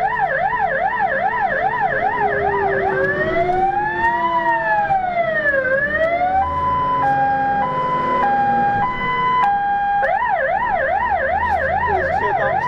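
Fire engine's electronic siren heard from inside the moving truck, switching patterns: a fast yelp, then a slow wail rising and falling about four seconds in, then a two-tone hi-lo from about six seconds, and back to the fast yelp near ten seconds. The truck's engine runs underneath.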